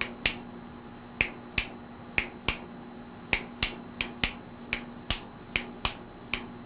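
Thin steel flywheel shim clicking as it is flexed between the fingers to check that it is flat, sharp irregular clicks about two or three a second, over a steady low hum.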